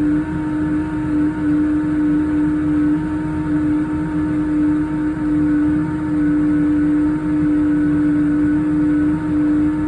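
Toshiba TW-117A7L drum washer-dryer making a loud, steady humming drone in its drying cycle: one strong unwavering tone with fainter overtones over a rough low hum. The noise comes from a failing drain pump, and a new drain pump cured it.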